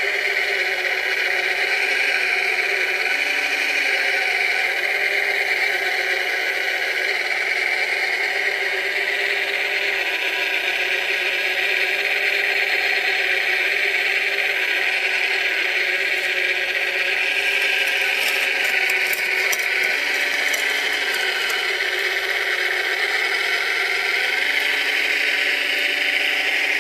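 Scale-model Cat 966 wheel loader running: a steady whine and rattle from its small motors and gearing, with the pitch wavering as it drives and works the bucket. A few light clicks come about two-thirds of the way through.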